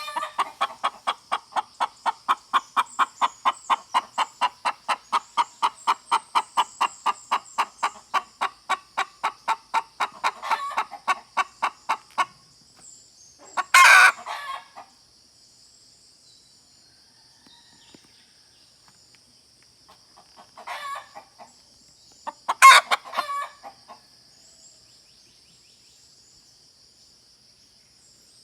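A hen clucking in a fast, even series of about four clucks a second for roughly twelve seconds, then falling quiet except for a few single louder calls.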